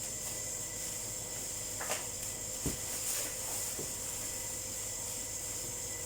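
Steady background hiss with a few brief, faint knocks, about two seconds in and a little later, typical of a television and its packaging being handled.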